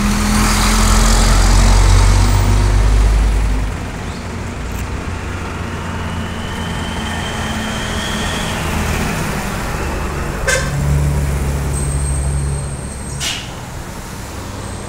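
Street traffic: a heavy vehicle's engine rumbles past close by, loudest in the first four seconds, then dies down into steady road noise, with another engine swelling past about eleven seconds in.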